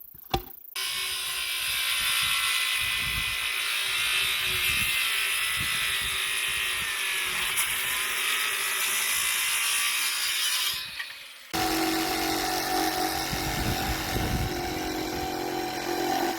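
Power saw cutting through a 6x6 pressure-treated timber beam. It runs steadily from about a second in, stops briefly about eleven seconds in, then runs again with a steadier motor hum.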